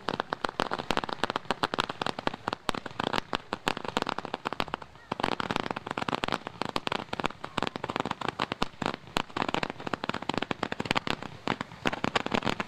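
Ground-fired fireworks shooting up crackling comets in quick succession: a dense, continuous crackle of rapid pops, with a brief lull about five seconds in.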